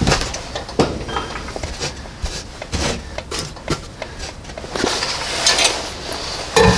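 Scattered knocks, clicks and scrapes of wood as a hand works cut-out pieces and scraps out of a freshly sawn hole in wooden siding. A louder burst of noise starts near the end.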